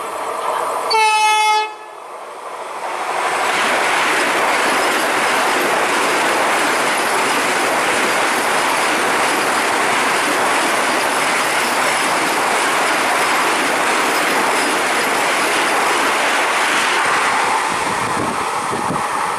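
Short, loud horn blast from an Indian Railways express train about a second in, then the train rushing past at speed, its wheels running on the track, steady for many seconds before easing a little near the end.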